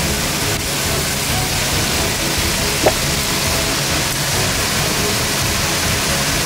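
Steady sizzling of beef burger patties frying in a pan and fries bubbling in a pot of hot oil, with one short click about three seconds in. Background music plays underneath.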